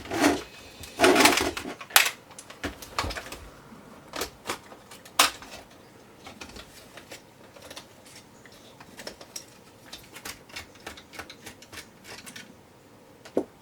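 Small plastic clicks, taps and rattles of a Video8 camcorder being handled and taken apart by hand. There are a few louder knocks in the first two seconds and a sharp click about five seconds in.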